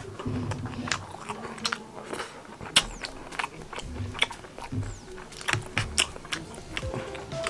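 A person chewing food, with many short, irregular clicks of the mouth.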